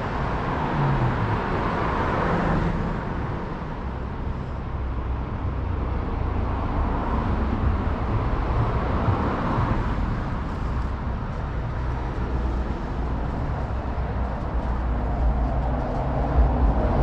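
Steady motor-vehicle noise: a low engine hum under an even wash of road noise.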